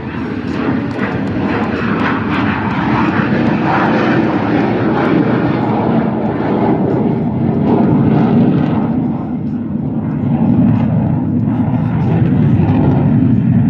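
Military jet aircraft roaring past overhead; the higher part of the roar fades after about six seconds as the jets move off, leaving a steady low rumble.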